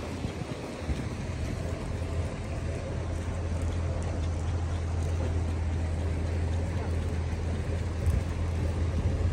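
Steady low engine hum of small motorboats passing on a canal, under open-air city ambience.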